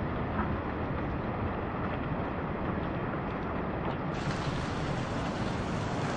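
Steady rush of a swollen river running high after a typhoon, an even noise with no distinct events; it turns brighter and fuller about four seconds in.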